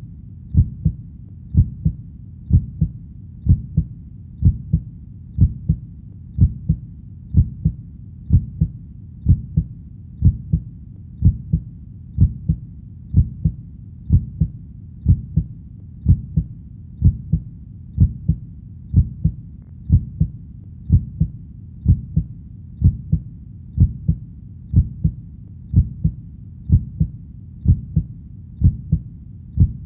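Heartbeat sound: a steady, slow lub-dub double beat, about one per second, low and dull.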